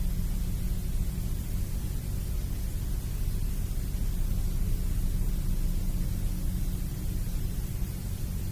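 Steady background noise: a low rumbling hum with a faint hiss over it, unchanging throughout.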